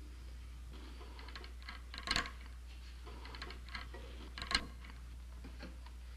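Small metallic clicks and taps of a Sharps rifle's parts being fitted together by hand, with two sharper clicks about two seconds in and again about four and a half seconds in, over a low steady hum.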